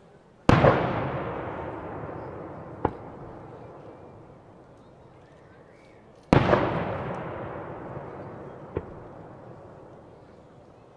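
Two fireworks shells bursting about six seconds apart, each a loud bang with a long echoing decay that fades over several seconds. A fainter, sharp crack follows each bang about two and a half seconds later.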